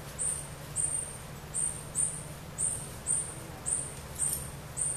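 An animal's high-pitched chirp repeating steadily, about two calls a second, over a low steady hum.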